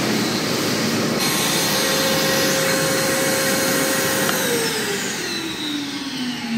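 Wet/dry shop vacuum running steadily, then switched off about four seconds in; its motor whine falls in pitch as it spins down.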